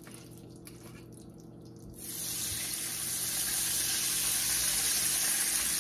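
White wine poured into a hot frying pan of chicken drippings, sizzling from about two seconds in with a steady hiss as the pan is deglazed to start the sauce.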